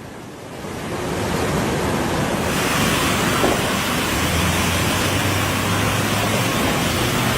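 Floodwater of a swollen river rushing, a steady noisy rush that builds over the first two or three seconds.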